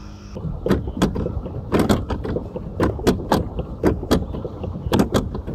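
Irregular clunks and knocks, roughly two a second, from a pedal boat being pedalled across the lake.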